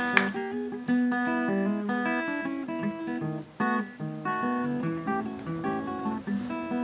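Background music played on guitar, a steady run of plucked notes.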